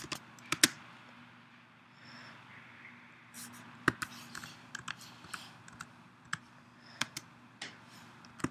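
Typing on a computer keyboard: irregular sharp key clicks, a few at the start, a pause of about two seconds, then a longer run of keystrokes.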